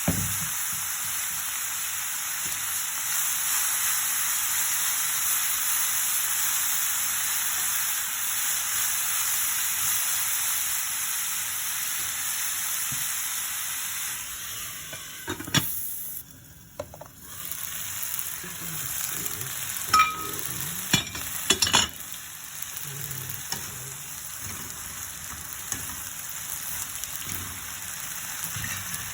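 Zucchini and bell pepper sautéing in a pan, sizzling steadily. The sizzle fades about halfway through, then a few sharp knocks of a utensil against the pan come while the vegetables are stirred, with the sizzle continuing more quietly.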